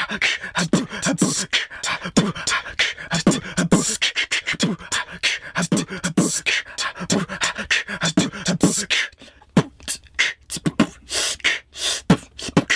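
Beatboxed hip-hop beat: a fast, steady rhythm of mouth clicks with kick- and snare-like vocal hits and no rapping. It thins to a few sparse clicks around nine seconds in, then picks up again.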